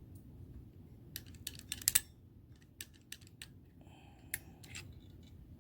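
Small sharp metallic clicks and taps as an air rifle's trigger spring and trigger parts are handled and fitted: a quick cluster about a second in, the loudest near two seconds, then a few scattered single clicks.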